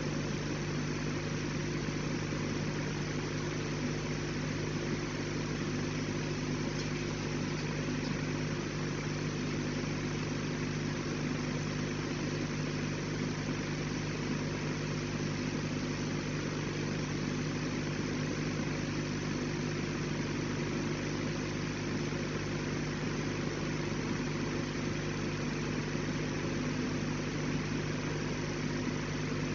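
Steady machinery hum: a constant low drone made of several held tones under an even hiss, unchanging throughout.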